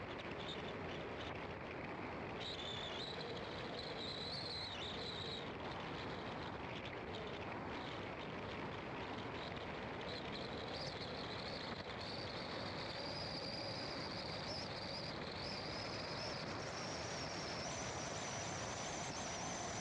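A car driving along a road: steady engine and tyre noise, with a thin high whine that climbs in pitch through the second half as the car gains speed.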